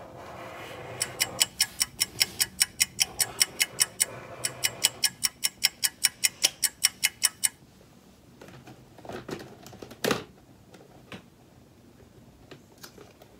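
A fast, even run of sharp clicks, about four to five a second, lasting several seconds with a short break partway through. A couple of single knocks follow near the end.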